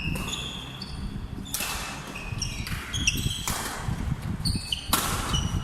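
Sports shoes squeaking on an indoor court floor during play: many short, high squeals, with three louder hits roughly a second and a half apart.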